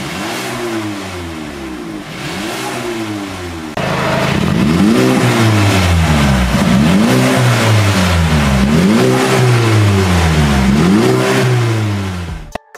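Mercedes-Benz A250's turbocharged four-cylinder engine revved repeatedly from idle through a valvetronic cat-back exhaust, each rev rising and falling over about two seconds. Two revs with the exhaust valves closed, then, about four seconds in, the valves open and four more revs come through much louder.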